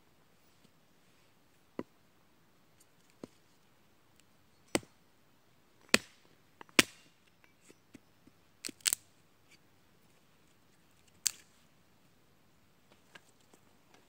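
Small hatchet chopping wood on a tree stump, splitting kindling: sharp, irregularly spaced knocks of steel into wood, about eight strong ones with smaller taps between, the loudest near the middle and one quick double strike.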